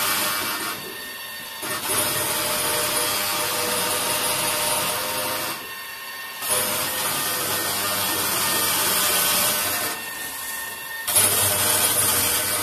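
Lely A4 milking robot running while it milks a cow: a steady mechanical noise that drops away briefly three times, about every four and a half seconds.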